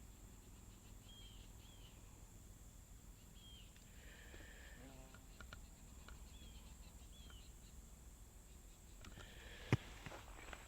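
Quiet forest ambience: a faint steady hiss with a few short, faint bird chirps scattered through it, and a single sharp click near the end.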